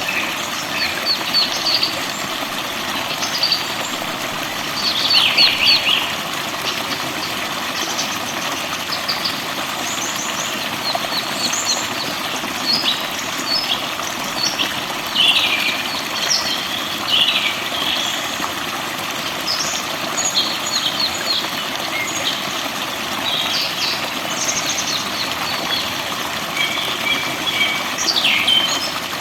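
Forest songbirds chirping and singing in short, quick phrases and trills, several overlapping, over a steady, even rushing noise.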